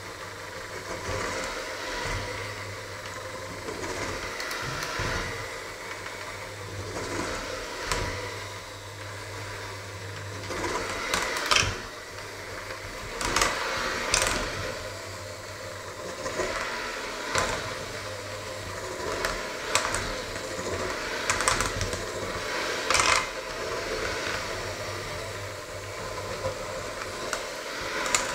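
Electric hand mixer running steadily as its beaters churn a thick mixture in a stainless steel bowl, with sharp clacks now and then where the beaters strike the side of the bowl.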